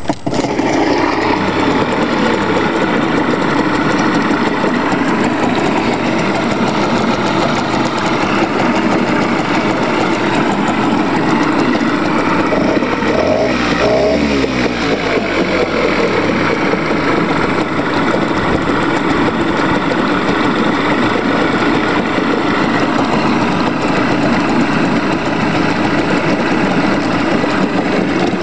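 Mariner 5 hp outboard motor catching right at the start, then running steadily in a test barrel, its propeller churning the water.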